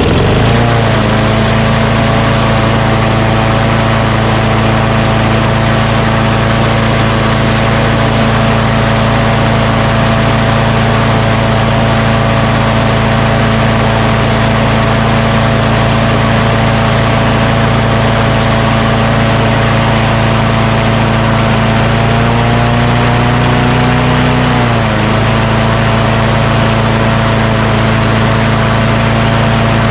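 Craftsman push mower's auto-choke Quantum engine catching and then running steadily at a high speed, which the owner takes to be too fast. About 22 seconds in the speed rises a little, then drops sharply near 25 seconds as it is turned down, and it runs on at the lower speed.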